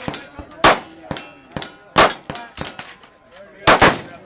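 Beretta Nano 9×19mm compact semi-automatic pistol fired in a slow string: sharp shots about a second or more apart, the last two close together, each followed by a metallic ringing.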